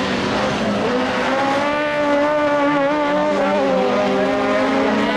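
Super 1600 rallycross cars racing past, their four-cylinder engines loud, the engine note rising about a second in, holding, then dipping near the end.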